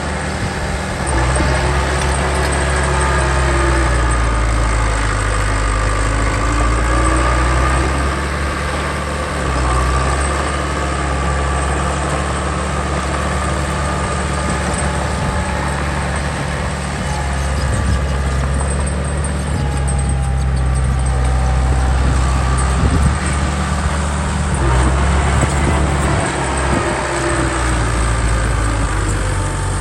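Heavy diesel engine of earthmoving machinery running steadily, with higher whining tones that rise and fall over it.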